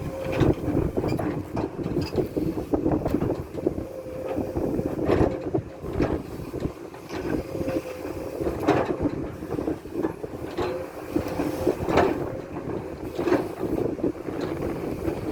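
Komatsu hydraulic excavator working: its diesel engine runs steadily under a held mid-pitched hum, with frequent irregular metallic knocks and clanks.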